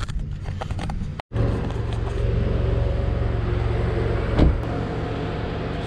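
Car engine and road noise heard from inside the moving car, broken by a sudden cut about a second in. After it a steady engine hum, with a brief louder swell about four and a half seconds in.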